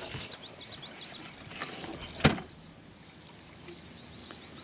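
Faint bird chirps in the first second, then a single sharp knock about two seconds in, with quiet outdoor background between.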